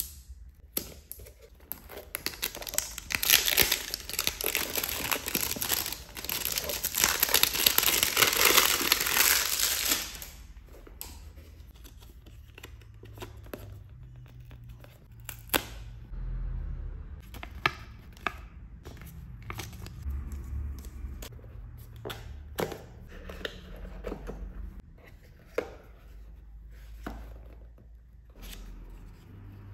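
Plastic wrap on a watch box being torn and crinkled loudly for about eight seconds. After that come quieter rustles, taps and clicks as the cardboard box is handled and its lid opened.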